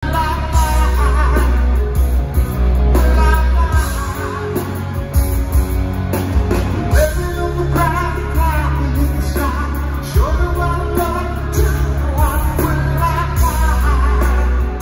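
A rock band playing live, a male lead singer's vocals over drums, bass and guitar, heard through the concert PA from among the crowd.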